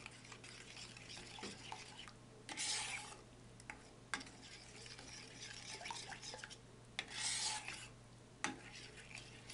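A metal spoon stirring rice milk and sugar in a stainless-steel pan, scraping and clicking against the pan's bottom and sides. There are two louder swishing scrapes, about two and a half and seven seconds in. The sugar is being stirred to dissolve before the heat is turned on.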